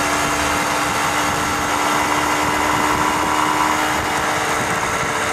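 Motorcycle engine running at a steady cruising speed, with wind noise rushing over the microphone on the moving bike.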